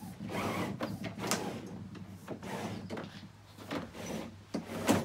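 Homemade anchor trolley being worked by hand: the rope runs through its pulleys along the canoe's side, making irregular sliding and rubbing sounds, with a sharp click about a second in and another near the end.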